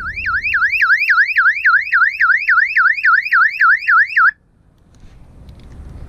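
Newly installed electronic alarm siren horn on a sailboat being test-sounded: a loud, piercing warble of rapid rising sweeps, about three or four a second, that cuts off suddenly a little past four seconds in.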